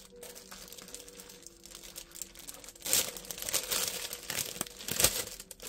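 Paper and plastic packaging from a cross-stitch kit crinkling as it is handled. It is quiet at first, then louder crinkling starts about halfway through, with a sharp crackle near the end.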